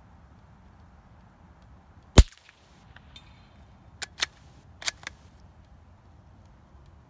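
A .22LR Ruger American bolt-action rifle fired once through a GSL Pill Box wipe-type suppressor: a single sharp suppressed crack about two seconds in. About two seconds later come four quieter metallic clicks as the bolt is worked. The suppressor's wipes are at about 90 rounds, past their recommended 50-round change.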